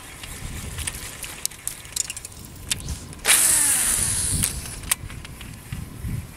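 Fishing reel handled during a cast: scattered light clicks, then about three seconds in a sudden loud whirr of line paying off the spinning spool, falling in pitch as the spool slows over about a second, followed by a sharp click.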